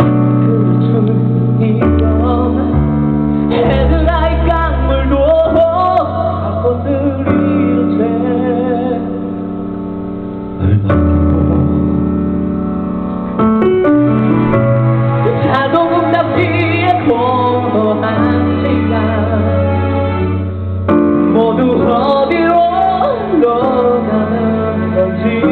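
Live song through a PA: a singer's wavering, sustained melody over held accompaniment chords that change every few seconds.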